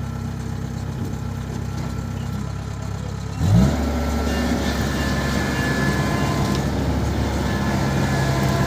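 Combine harvester engine running steadily, then quickly rising in pitch about three and a half seconds in and staying louder, with a higher whine over the hum.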